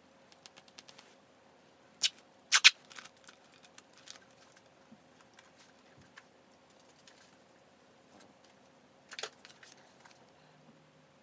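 Sharp clicks and knocks of small objects being handled and set down, with a few loud knocks about two seconds in and another cluster near the end. A faint steady hum runs underneath.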